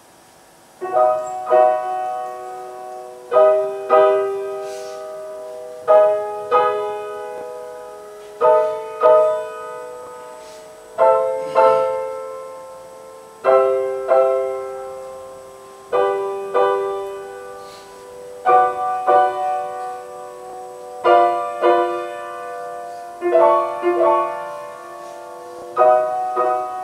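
A grand piano is played slowly and softly, in calm phrases that start about a second in. A chord or two is struck every couple of seconds, and each is left to ring and fade.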